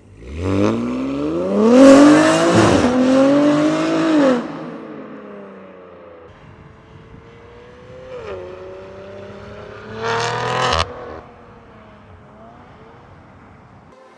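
BMW G80 M3's S58 twin-turbo straight-six with catless downpipes and an aftermarket exhaust, accelerating hard with its pitch rising steeply. There is a brief dip like a gear change, then it eases off about four seconds in. After lower running, a short loud rev about ten seconds in cuts off abruptly.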